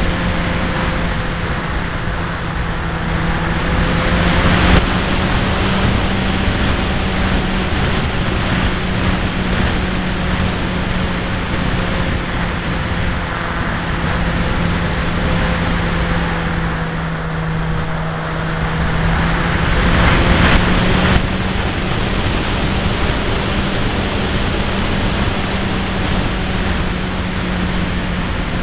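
Two-stroke Irvine .53 glow engine of a Pulse XT 40 model plane running steadily in flight, heard from a wing-mounted camera with heavy wind rush over the microphone. Its pitch wavers slightly, and the sound swells louder briefly twice, about four and a half and twenty seconds in.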